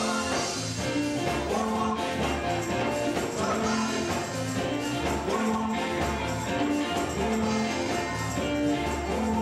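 Live gospel quartet music: a band playing an upbeat groove with a strong bass line and steady percussion, with singing over it.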